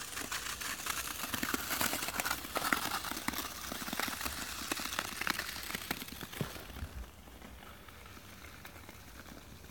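Ice skate blades scraping and crunching over a rough, icy, snow-crusted road, a gritty run of scratches that stops about seven seconds in.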